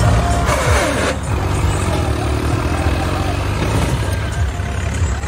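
Farmtrac 60 T20 tractor's diesel engine running under throttle as the tractor is swung through tight turns on loose ploughed soil. About half a second in there is a brief rushing noise with a falling tone.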